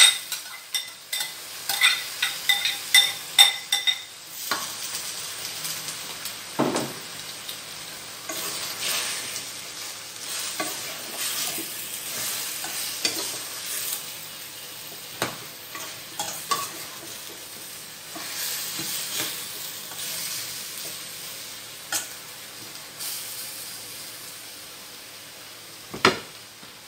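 Jackfruit chunks sizzling as they are sautéed in a stainless steel pan. In the first few seconds a metal ladle clinks and scrapes rapidly against the bowl and pan as the pieces are tipped in. After that comes a steady frying sizzle while they are stirred, with a few single ladle knocks, the sharpest near the end.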